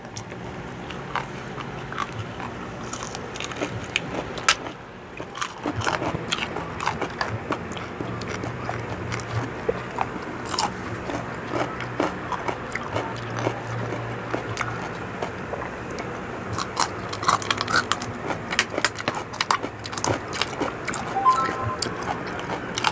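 Close-miked crunching and chewing of crispy pork chicharon and raw vegetables: many irregular crisp crackles of bites, denser in the second half.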